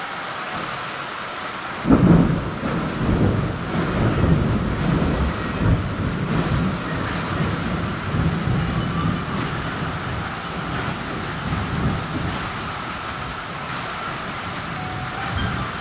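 Heavy rain falling steadily, with a sudden thunderclap about two seconds in that rolls on as a long rumble of thunder, fading toward the end.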